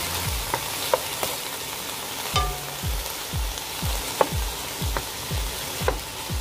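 Diced pork sizzling in a nonstick frying pan while a wooden spatula stirs it, with frequent light clicks of the spatula against the pan. The meat is being sautéed in its own juices before water goes in.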